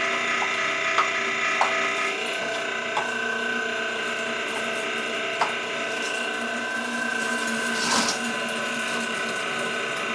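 A 1.5-horsepower electric meat grinder running steadily as cooked meat scraps are pushed into it, its hum changing pitch slightly about two seconds in, with a few sharp clicks and knocks along the way.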